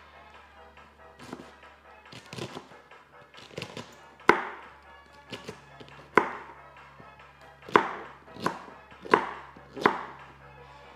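Kitchen knife chopping cabbage on a cutting board: sharp strokes about one a second, coming a little closer together near the end. Softer crunching and rustling of the cabbage leaves comes before the first hard stroke.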